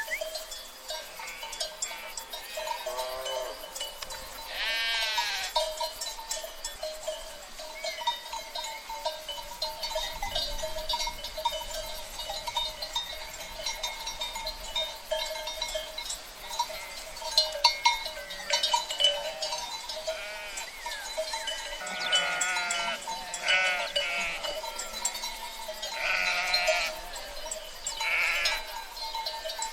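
A flock of sheep bleating: scattered calls early on, including a loud one about five seconds in, then several bleats close together in the last third, over a steady tone.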